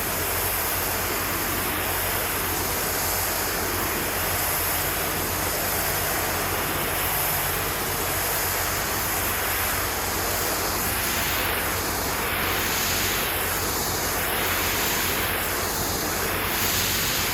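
Pressure washer spraying water against a building wall: a steady, loud hiss with the machine's engine running underneath. From about ten seconds in, the hiss wavers in a regular rhythm about every two seconds.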